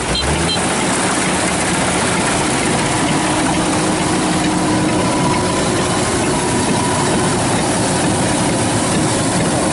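Kubota DC-93 combine harvester's diesel engine and threshing machinery running steadily, a loud, even drone with a few constant hums.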